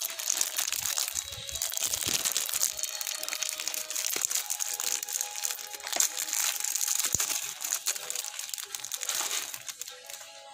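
Plastic wrapping crinkling and rustling as it is handled, with a few light knocks.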